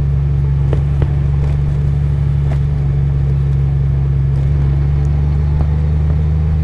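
Engine of a 2015 Honda Gold Wing GL1800, a flat-six, running steadily as the motorcycle cruises, heard as a steady low hum. A couple of faint clicks come about a second in.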